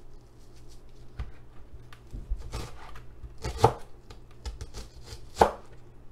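Chef's knife dicing a shallot on a plastic cutting board: irregular taps of the blade striking the board, with two louder strikes in the second half.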